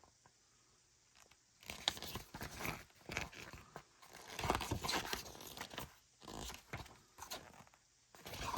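Paper and cardboard inserts of a Pokémon Elite Trainer Box being handled: irregular rustling and crinkling, starting after about a second and a half of quiet.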